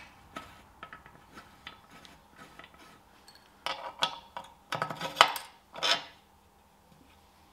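Long sump bolts clinking together in the hand and against the sump flange as they are dropped into their holes: a few light metallic clicks, then a louder cluster of clinks about four to six seconds in.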